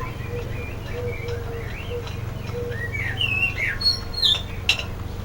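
Bird chirps and squawks: a run of short gliding calls that grow louder about three seconds in. Under them is a steady low hum, and there is a sharp click near the end.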